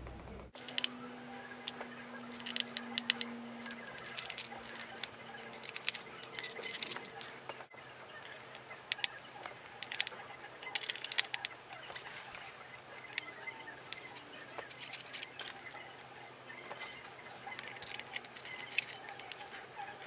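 Small screwdriver clicking and scraping on the tiny screws of an early-2008 MacBook Pro's metal memory cover as they are turned out: light, irregular ticks, some in quick clusters.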